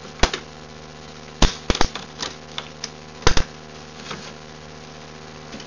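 An old Taski canister vacuum being opened by hand: sharp plastic clicks and snaps, one near the start, three around a second and a half in, and a close pair about three seconds in, over a steady low hum.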